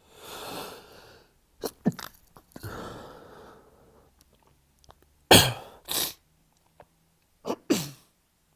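A man's stifled sneezes during a sneezing fit: long gasping breaths in, then three pairs of short, held-back sneezes, the loudest pair about five to six seconds in.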